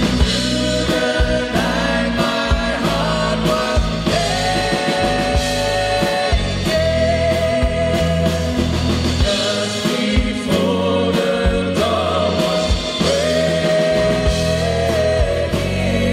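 Live band playing, with a male lead singer holding long sung notes over acoustic and electric guitars, bass guitar, piano and drums.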